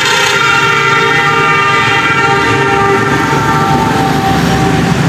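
A long vehicle horn held for about four and a half seconds, its pitch sagging slightly as it goes, over road traffic.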